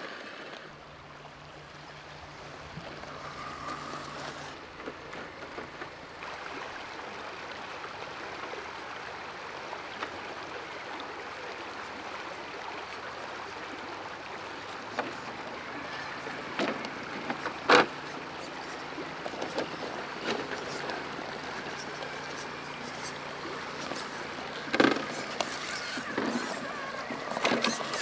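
Element RC Enduro scale crawler trucks driving over rocks. A faint low motor hum comes in early, and a few sharp clicks and knocks of tyres and chassis on rock stand out, loudest about two-thirds of the way through and again near the end, over a steady background hiss.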